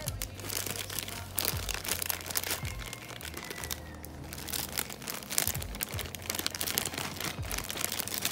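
Crinkling, crackly rustle of a Betty Crocker brownie-mix packet as the dry mix is poured out of it, with many small crackles throughout.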